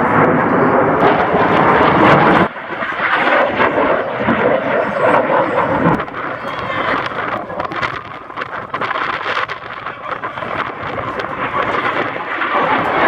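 F-16 Fighting Falcon jet noise from an air show pass, a loud, rough rushing sound. It drops abruptly about two and a half seconds in and again at six seconds, then carries on quieter.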